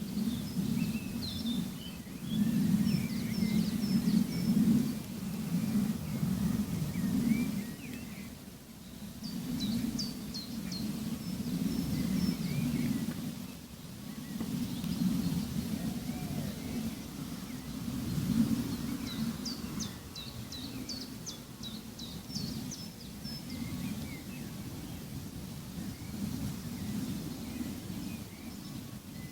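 Outdoor nature ambience: small birds chirping and twittering, with two quick runs of rapid chirps, over a steady low rumble that swells and fades.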